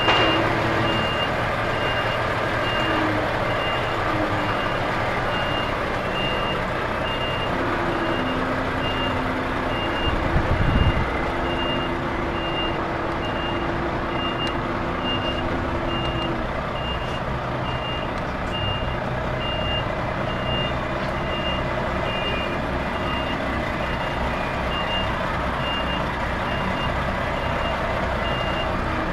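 A lorry's reversing alarm beeping at an even pace over the truck's engine running as the truck backs up, with a brief low thump about ten seconds in.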